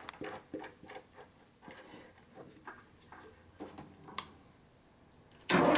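Light metallic clicks and taps of a small cutter being handled and fitted into a drill press chuck. Near the end the drill press motor switches on suddenly and runs with a steady hum, the loudest sound here.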